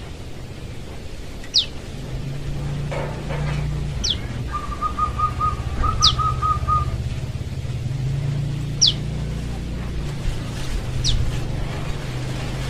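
Juvenile prenjak lumut calling for its parent: a thin, high note sliding quickly downward, repeated six times at gaps of two to three seconds. Two short runs of quick, lower notes come near the middle, over a steady low hum.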